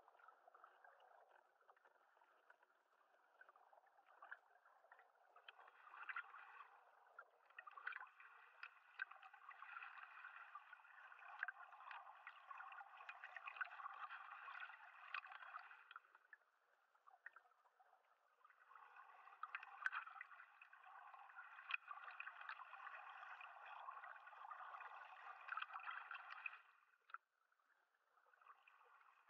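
Faint underwater gurgling of moving water, with scattered small crackles and clicks, swelling for several seconds at a time and dropping away briefly about 16 and 27 seconds in.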